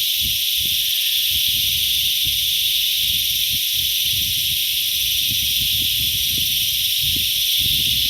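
Loud, steady high-pitched chorus of cicadas, a continuous shrill drone with no break, over irregular low thumps and rumbles.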